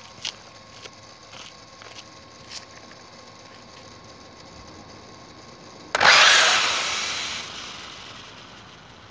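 Serpent Cobra 1/8-scale electric buggy launching at full throttle about six seconds in: a sudden burst of motor whine and tyre noise that fades over a couple of seconds as it speeds away. A few light clicks come before it.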